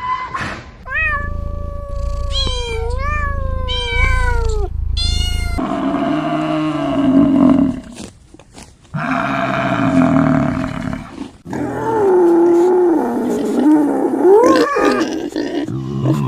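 An animal calling: a run of short pitched cries that rise and fall in the first few seconds, then longer, lower, drawn-out calls.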